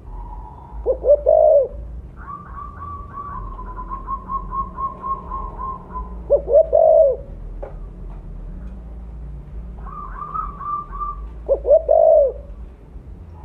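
Spotted dove (tekukur) of the mottled 'blorok' variety cooing: three loud short phrases of quick coos, about five seconds apart. Between them a fainter, higher series of rapid repeated notes comes from another bird.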